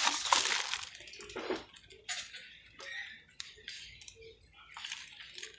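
Clear plastic packaging crinkling as a bagged plastic part is picked up and handled. It is loudest in the first second, then thins to scattered light rustles and clicks.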